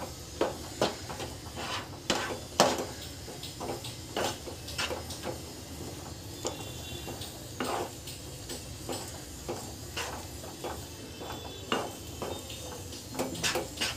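Spatula scraping and knocking against a nonstick frying pan while stirring a thick, crumbly milk-powder peda mixture, in irregular strokes about once or twice a second. The mixture is being cooked down until it thickens.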